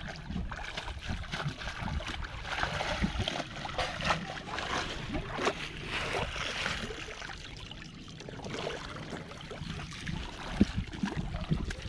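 Shallow river water splashing and sloshing as a cloth bag is dunked and swished in it beside a landing net, busier for the first several seconds and calmer near the end.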